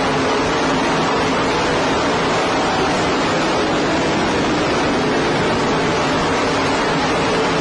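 Race cars' engines running flat out as a pack circulates the track, heard as a steady, dense roar with no let-up. The recording is poor and heavily distorted, so the engines blur into a noisy wash.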